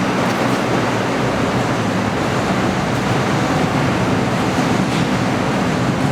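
Steady, even rumbling noise of a ceramic kiln workshop, with no separate knocks or clanks.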